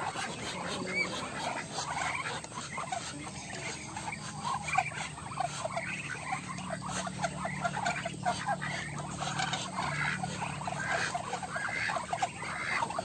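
Ducklings peeping in a chorus of many short, overlapping high calls, with a faint low steady hum beneath.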